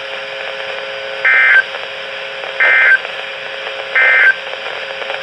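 Three short bursts of NOAA Weather Radio SAME digital data, each about a third of a second long and a little over a second apart, over steady radio hiss: the End of Message code that closes the warning broadcast.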